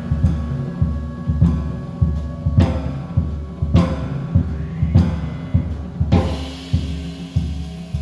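Background music with a steady drum beat and evenly spaced cymbal-like crashes that stop a little after six seconds in.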